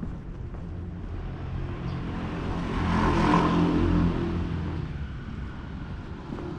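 A car passing by on the street, its engine and tyres growing louder to a peak in the middle and then fading away.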